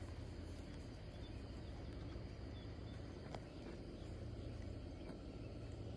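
Faint outdoor background: a steady low hum with a couple of light clicks.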